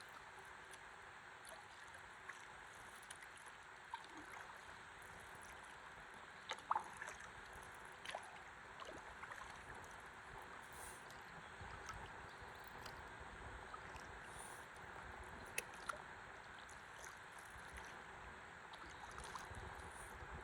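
Faint river water lapping and gurgling around a stand-up paddleboard as it floats, with scattered light splashes or knocks, two of them a little louder about six and a half seconds in.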